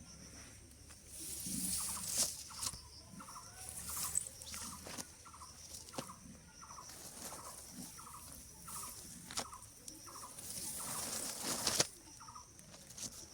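A bird calls in a steady series of short, fairly low notes, about two a second. Sharp clicks and spells of high rustling hiss run through it, the loudest hiss just before the calls stop.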